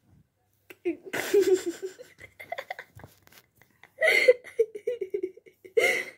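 A person laughing in breathy bursts: a long one about a second in, another at about four seconds, and a short one near the end.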